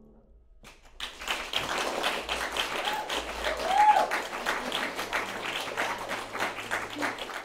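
Audience applause starting about a second in, after a short hush as the piano dies away, with a brief cheer in the middle.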